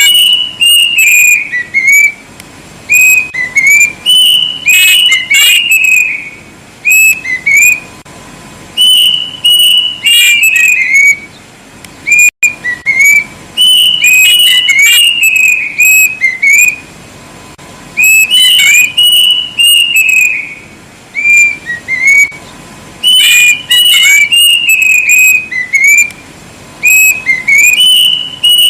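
Kedasih cuckoo singing very loudly: phrases of clear, high whistled notes that rise and fall, repeated over and over with short pauses of a second or two between them.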